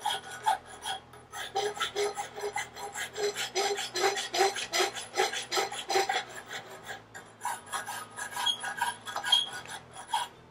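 Farrier's rasp scraping back and forth across an aluminum horseshoe held in a shoe stand, in quick regular strokes with a short break about seven seconds in. The rasp is dressing the edges of the shoe's foot surface so that they stay strong and do not wrinkle over when the shoe is shaped.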